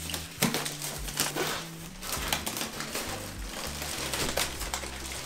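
Plastic wrapping crinkling and rustling as it is handled and peeled back, in a run of small crackles, over background music.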